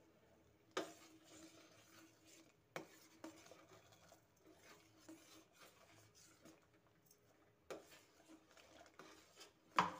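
Metal spoon clinking against a steel pot while powder is tipped into milk and stirred, with faint scraping between four sharp clinks; the loudest comes just before the end.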